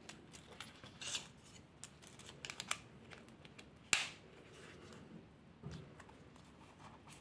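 A folding knife and its small leather sheath handled by hand: soft rubbing of leather with scattered light clicks, and one sharper click about four seconds in.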